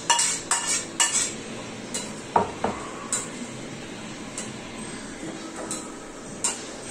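A steel ladle clinking and scraping against a steel kadai as a thin liquid is stirred, with several quick metal clanks in the first second and single clinks every second or so after that.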